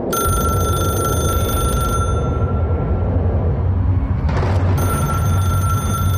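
A telephone ringing: one ring of about two seconds, a pause with a brief rush of noise, then a second ring near the end, over a steady low rumble.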